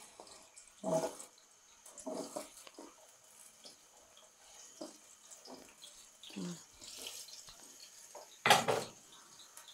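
Chopped onions frying in hot oil in a metal pot: a light, crackly sizzle with scattered pops, and one short, louder burst about eight and a half seconds in.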